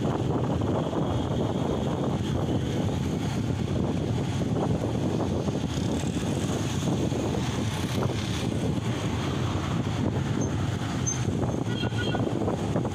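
Motorcycle engine running steadily under way, heard from the rider's seat as a continuous rush of engine and wind noise.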